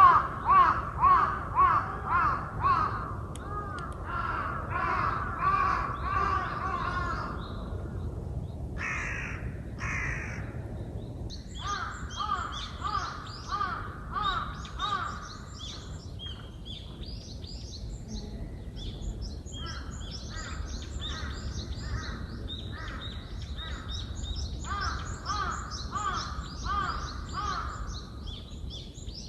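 Crows cawing in runs of repeated caws, about two a second, loudest at first and coming and going in bouts. From about halfway, a small songbird's rapid high chirping runs alongside.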